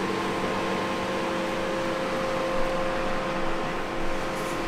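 An electric fan running with a steady whir, with a constant hum over an even hiss.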